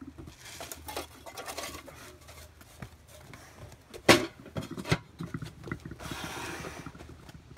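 Metal lid set down onto a metal can of smouldering sawdust for the raku reduction that blackens the pieces, with rustling and handling around it. One sharp clank about four seconds in, a second, lighter knock just before five seconds.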